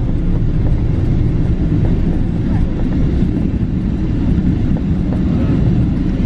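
Boeing 777-300ER rolling out on the runway after landing, heard from inside the cabin: a loud, steady, deep rumble of the wheels and engines.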